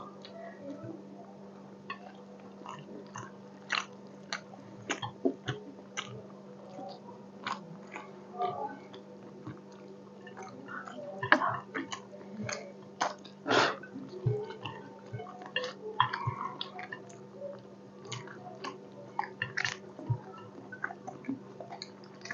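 Close-up eating sounds of people eating fish curry and rice: chewing with wet mouth smacks and scattered sharp clicks, the loudest about 11 and 13 seconds in, over a steady low hum.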